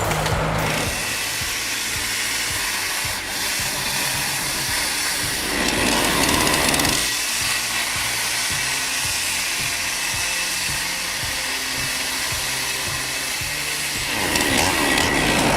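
Chainsaw running and cutting wood, under background music.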